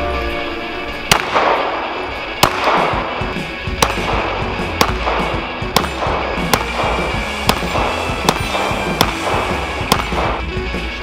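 Glock 19 9mm pistol shots fired in a steady string, about one a second, roughly a dozen in all, over a background music bed.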